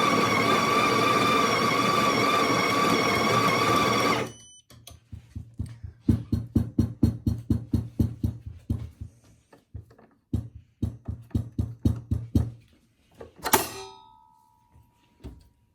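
The built-in burr grinder of a Sage (Breville) Barista Touch espresso machine runs with a steady whine, grinding a dose at a finer setting, and stops about four seconds in. Then comes a long run of rapid light knocks, about five a second. Near the end there is a single sharp clink that rings on briefly.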